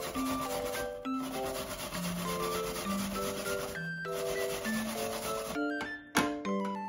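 Background music with a gentle mallet-percussion melody, over a steady rubbing or scraping noise that breaks off briefly about a second in and again near four seconds.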